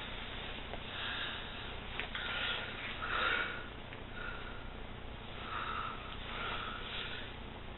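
Faint room hiss with a few soft, breathy sounds from a person close to the microphone, spaced about a second apart.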